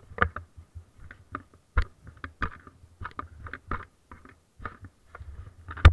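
Handling noise on an action camera: irregular knocks, clicks and rubbing close to the microphone as the camera is swung about, with the sharpest knock near the end.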